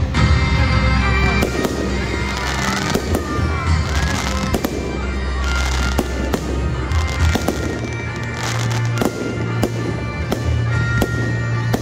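Aerial fireworks bursting: frequent sharp bangs, at times several in quick succession, with music playing underneath.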